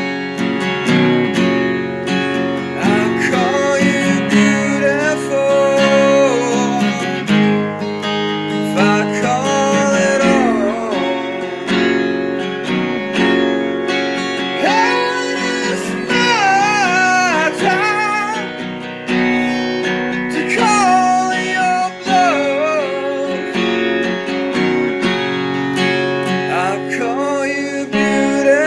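Strummed acoustic guitar playing steady chords, with a gliding, bending melody line over it and no sung words.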